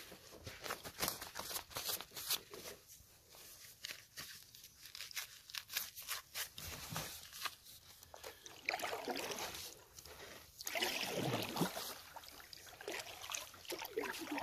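Kayak paddle strokes in calm water: water dripping and splashing off the blades, with many small ticks and knocks. The splashes grow fuller and louder in the second half.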